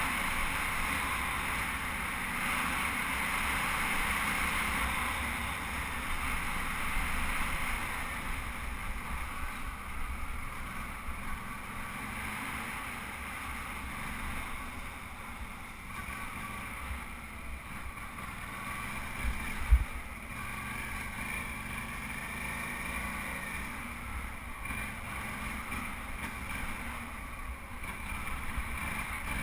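Suzuki V-Strom 650's V-twin engine running at riding speed on a sandy dirt trail, mixed with steady wind noise on the microphone. One sharp thump about twenty seconds in.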